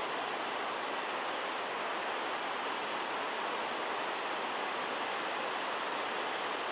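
Steady rushing hiss of a small waterfall, white water cascading down granite slabs.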